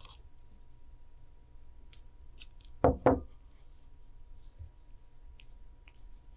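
Small clicks and handling noises of pliers and 3.5 mm craft wire as the wire is bent into a curl, with two loud knocks in quick succession about three seconds in.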